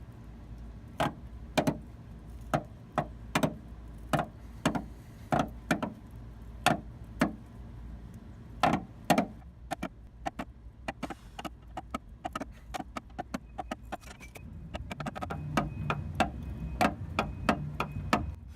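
Car's stock scissor jack being cranked up under the pinch weld, its handle and screw clicking and clanking about twice a second, then faster and lighter clicks in the second half as the car lifts.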